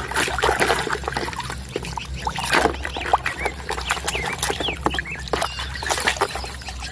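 Water splashing and sloshing, with clicks and knocks as hard plastic toy vehicles are washed by hand. Short high chirping calls sound in the background, mostly in the middle.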